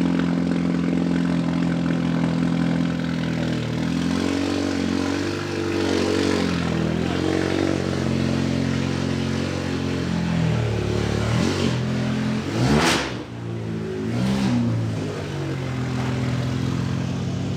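Car engine running, its pitch rising and falling several times as it is revved and eased off, with a short rushing sweep about thirteen seconds in.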